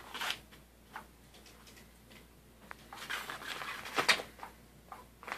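Fabric cover of a Cat's Meow motorized cat toy rustling in short bursts as the wand moves beneath it and a cat paws at it, with a longer burst of rustling about three seconds in as the cat pounces and a sharp knock about four seconds in.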